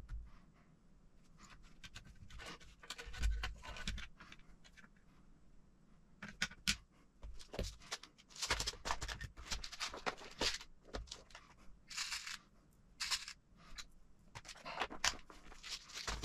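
Small plastic and metal RC kit parts being handled on a work mat, with a clear plastic compartment box of screws picked through: scattered clicks, taps and short scrapes, busiest in the second half.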